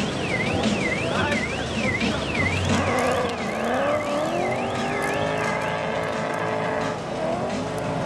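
A warbling, rising-and-falling alarm tone repeating about twice a second fades out over the first three seconds. Meanwhile a drift car's engine revs up and holds high revs, dipping briefly and picking up again near the end.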